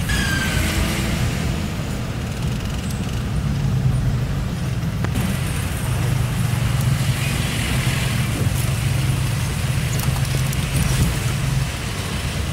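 Car engine and road noise heard from inside the cabin while driving slowly: a steady low hum under a rumbling hiss of tyres on the road surface.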